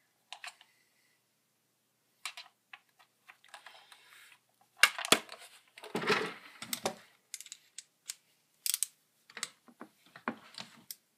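Irregular clicks and clatters of small metal screwdriver bits and hand tools being picked through and handled, with the loudest clatter around five to six seconds in.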